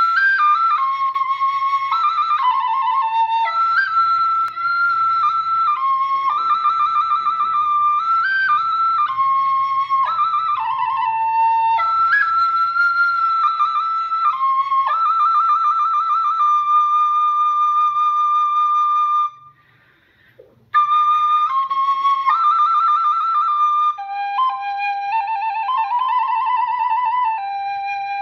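Khloy (Khmer bamboo flute) playing a slow melody of held and stepping notes, with a short breath pause about two-thirds of the way through.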